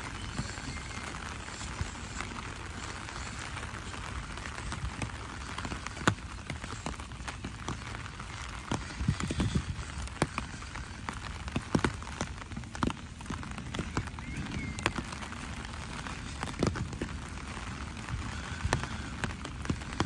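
Steady rain falling on wet paved paths and grass, with irregular sharper taps and soft thumps.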